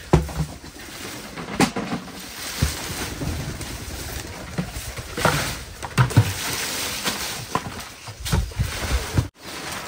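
Dry palm leaves rustling and scraping as armfuls are lifted and dragged, with scattered knocks and thumps.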